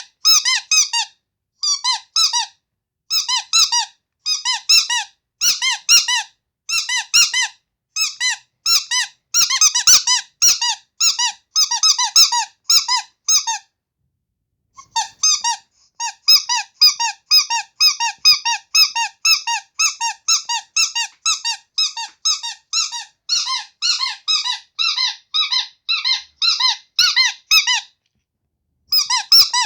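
Carrot-shaped squeaky toy squeezed over and over, giving runs of short, high squeaks several a second. The runs break off briefly about halfway through and again near the end.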